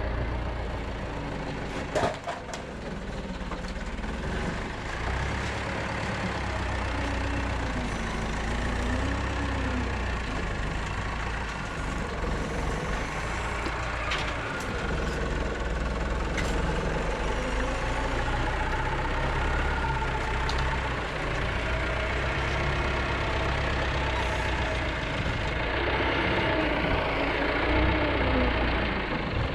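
Tractor engine running steadily, its pitch wavering up and down a little, with one sharp knock about two seconds in.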